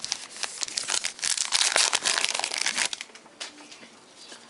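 Wrapper of a 2012 Topps Heritage baseball card pack crinkling and tearing as it is ripped open: a dense run of crackles for about three seconds, then quieter.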